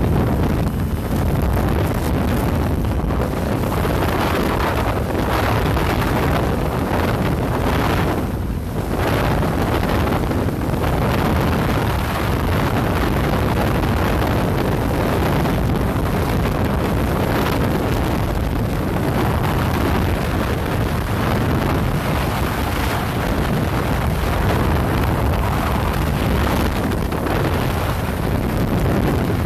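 Steady wind rush buffeting the microphone on a sport motorcycle at highway speed, mixed with the bike's engine and road noise.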